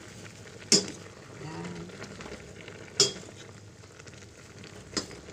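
Metal ladle stirring long beans in a stainless steel pot, knocking sharply against the pot three times, about a second in, at three seconds and near the end. Under the knocks the stew sizzles faintly and steadily.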